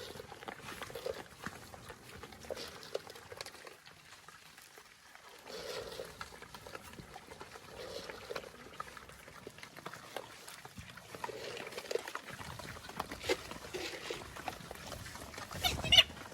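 Pigs grunting on and off, short grunts every second or two, among small clicks and rustles; a louder sudden sound breaks in near the end.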